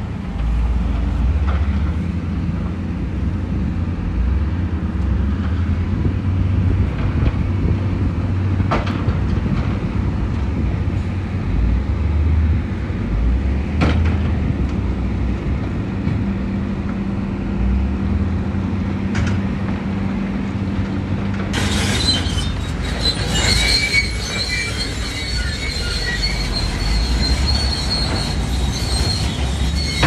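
Heavy earthmoving machinery at work: a diesel engine's steady low rumble with a few sharp knocks. About two-thirds of the way in, a high metallic squealing and rattling joins it.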